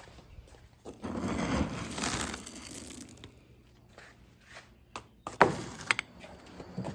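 Rustling, crunching handling noise for about two seconds, then two sharp knocks about half a second apart.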